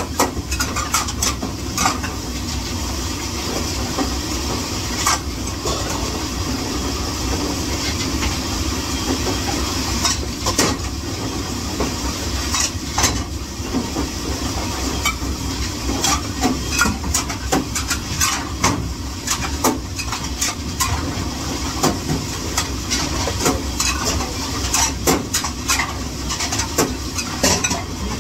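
Dishes and utensils clattering in frequent sharp clinks during dishwashing, over a steady hiss and low hum.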